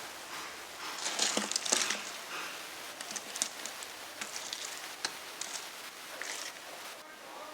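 Sabudana vadas deep-frying in hot oil: a steady sizzle with bursts of crackling and spitting, loudest about a second in.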